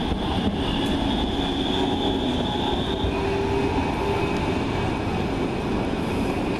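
City tram running past close by, a steady rumbling rolling noise with a high whine from its drive that drops in pitch about three seconds in.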